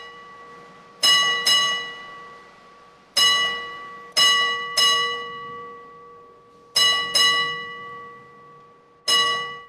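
A metal object struck eight times, singly and in quick pairs. Each blow leaves the same clear, bell-like ring that fades over a second or two.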